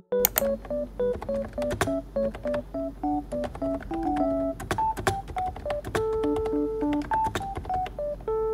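Typing on a Mofii keyboard with round typewriter-style keycaps: quick, irregular key clicks, several a second, starting a moment in. Under it runs a light piano-like melody of background music.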